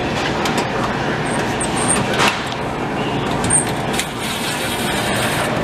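A steady, even rushing noise, with a few short clicks and brief high-pitched whirs as a DeWalt cordless drill/driver is worked at screws on the vending machine's refrigeration unit.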